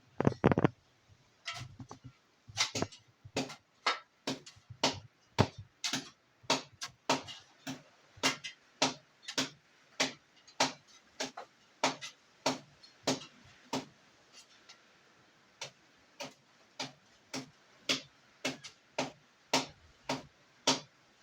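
Hands striking a person's body in a steady massage rhythm, sharp slaps or chops about three every two seconds.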